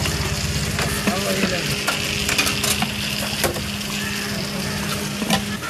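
A steel ladle scoops falsa juice from a large steel bowl and pours it into a bag, with liquid splashing and the ladle clinking against the bowl's rim several times. A steady low machine hum runs underneath and stops shortly before the end.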